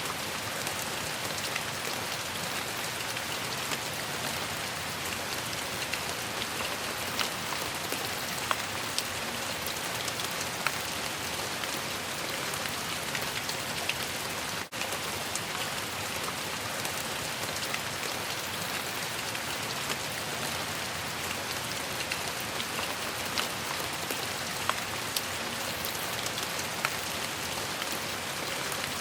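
Steady rain falling on a surface: an even hiss with scattered sharper drop ticks, broken once by a very brief gap about halfway through.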